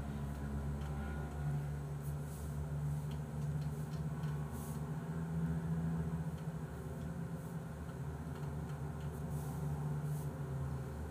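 Quiet room tone: a steady low hum with a few faint scattered clicks.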